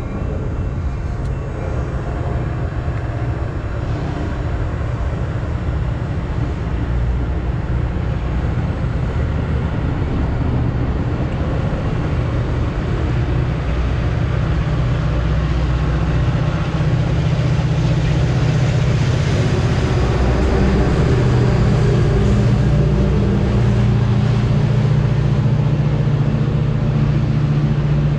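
Train engine running at a station platform, a low steady hum that grows louder about halfway through.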